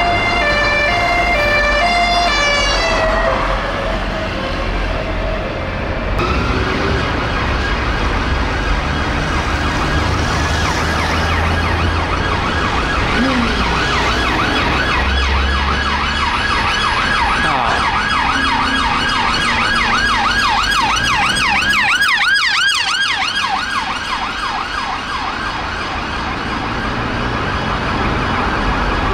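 UK police car sirens, first from a BMW X5 and Hyundai i30, then from a BMW 218 and Mitsubishi Outlander. A stepping, alternating-pitch siren fades out over road noise in the first few seconds. From about six seconds in a new siren wails, then switches to a fast yelp, with two sirens overlapping for a while.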